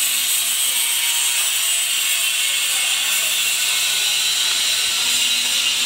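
Electric arc welding on steel pipe: a steady, high hiss of the arc that does not let up.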